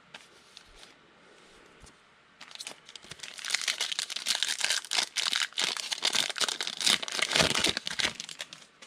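Foil wrapper of a 2018 Donruss football card pack being torn open and crinkled by hand: a dense crackling that starts a couple of seconds in, lasts about six seconds and is loudest near the end.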